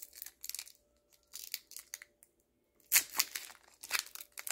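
Foil wrapper of a Pokémon TCG Silver Tempest booster pack crinkling and tearing as it is torn open by hand. The crackles are scattered, with a short lull in the middle and a louder crinkle about three seconds in.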